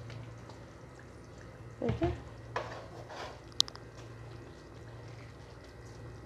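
A pan of fish curry being handled and shifted on a gas hob's metal grate: a few short knocks and scrapes, then one sharp metallic clink a little past the middle, over a steady low hum.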